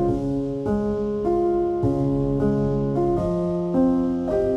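Background piano music: sustained chords, with a new chord every half second or so.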